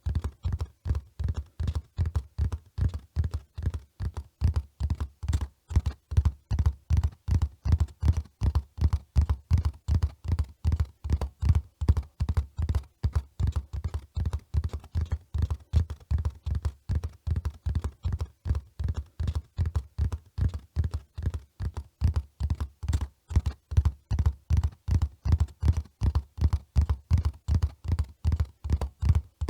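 Horse hoofbeats at a run: a steady, even rhythm of dull thuds, a few a second.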